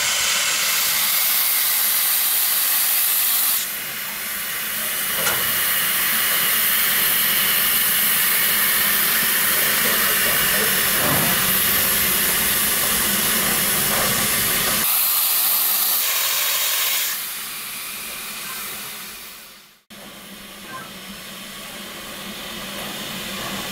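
Live steam locomotive, Texas State Railroad's 1917 Baldwin 2-8-2 Mikado #30, venting steam: a loud steady hiss that eases briefly about four seconds in, stops about fifteen seconds in, comes back for a second or two, then fades away.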